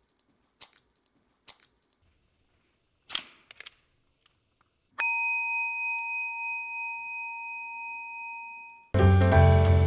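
A few small plastic clicks and a short rustly squish, then a single bell-like chime struck once about five seconds in that rings on and fades over about four seconds. Background music with a piano comes back in near the end.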